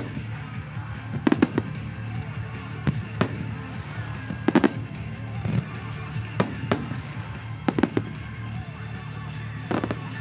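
Aerial firework shells bursting in sharp bangs about once a second, some in quick doubles and triples, over music playing underneath.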